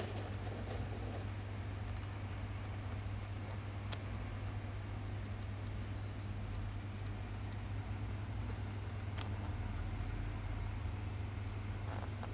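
Aquael FAN-2 plus internal aquarium filter running with a steady low hum, with faint scattered ticks over it.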